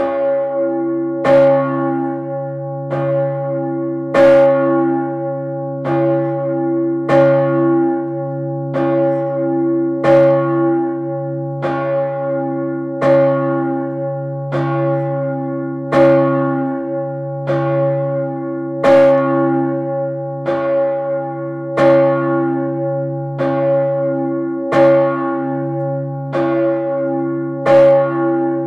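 Urban, a large tower bell of about 3200 kg cast in 1588 and tuned near C-sharp/D-flat, is swinging and struck by its clapper about every one and a half seconds. Each stroke rings on into the next over a deep, continuous hum.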